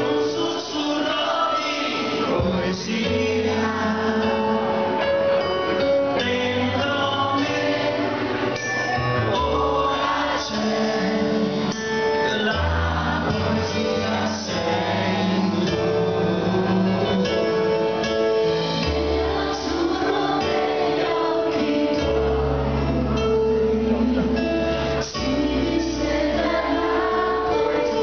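A live pop band playing, with a man and a woman singing over keyboards and drums, recorded from the audience in a concert hall.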